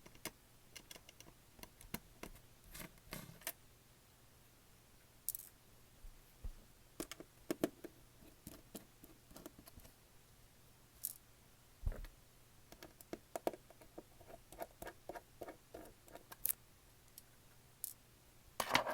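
Small screwdriver clicking and scraping against tiny screws and metal parts as screws are taken out of a tablet's logic board: irregular light clicks and taps, with a quicker run of ticks about two-thirds of the way through.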